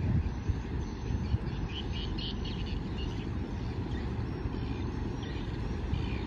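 Low, uneven rumble from a large cargo ship passing at speed with its bow wave churning, mixed with wind on the microphone. Faint bird chirps come in about one and a half to three seconds in.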